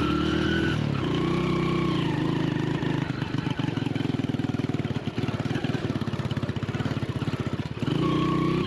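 Honda Win small single-cylinder motorcycle engine working over rough dirt trail. The throttle is opened and eased in short rises and falls, then about three seconds in it drops to a low, uneven chugging for several seconds before revving back up near the end.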